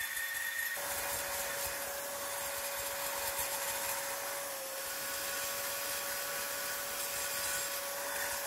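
Handheld electric drill running steadily with a ball-shaped bur, grinding and cleaning the metal surface of a Mitsubishi Pajero cylinder head to prepare a damaged spot for welding. The motor holds one steady pitch under a grinding hiss, dipping slightly about halfway through.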